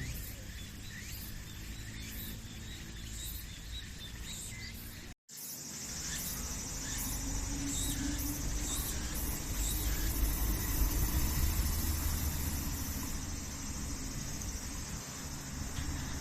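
Outdoor ambience with short, repeated bird chirps and insect calls. After a brief break about five seconds in, a low rumble rises under it.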